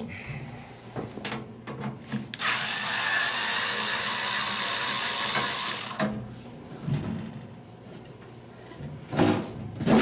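A power drill runs steadily for about three and a half seconds, driving against one of the microwave's security screws, which are being forced out with no matching bit. Short knocks of handling come around it, and near the end there is a louder clatter of the sheet-metal cover being handled.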